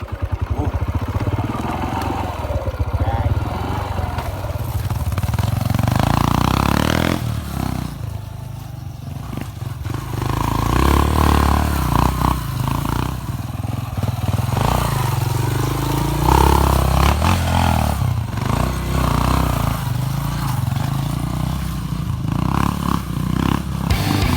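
Yamaha XTZ 125's single-cylinder four-stroke engine running under way on a ride, its note rising and falling with the throttle.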